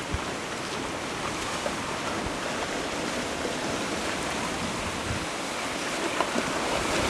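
Broken river ice drifting downstream during the spring ice break-up: a steady rushing of floes and water grinding past, with a few faint knocks of ice on ice.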